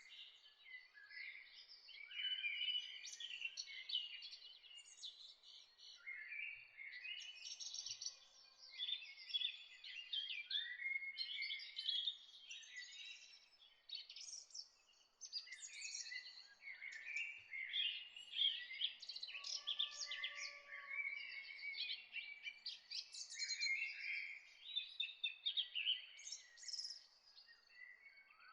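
A chorus of songbirds chirping and singing, with many short calls and trills overlapping without pause.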